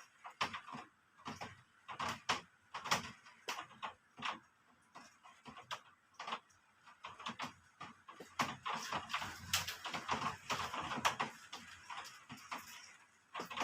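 Raindrops dripping and tapping irregularly on a hard surface as separate taps, which crowd into a denser patter about two-thirds of the way through.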